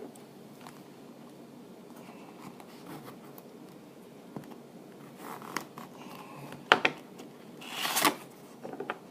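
A sealed hobby box of football cards being opened by hand: light handling clicks and rustles, then a short ripping swish about eight seconds in, like wrapping or cardboard being torn open.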